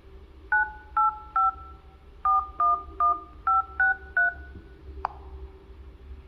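Infinix Smart 6 dialer keypad playing touch-tone beeps as a phone number is keyed in: nine short two-note beeps in three quick groups of three, then a single click about five seconds in.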